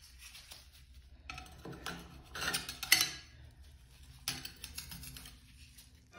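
Metal putty knife scraping and clinking against ceramic wall tile and the porcelain rim of a cast iron tub, in three short bouts with the sharpest click about three seconds in.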